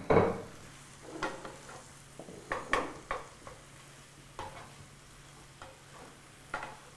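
Wooden spoon stirring sliced zucchini into browned ground meat in a hot frying pan: irregular scrapes of the spoon against the pan, the loudest right at the start, over a soft sizzle.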